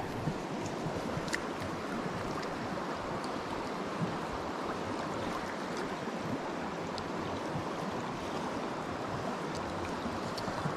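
Steady rush of a shallow river flowing over rocks, with a few faint ticks.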